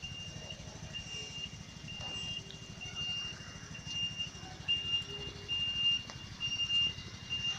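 Tricycle ambulance's turn-signal buzzer beeping, a high beep switching on and off a little over once a second, over the low steady running of the tricycle's engine.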